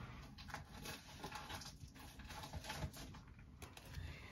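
Faint, scattered light taps and rustles of small objects being handled.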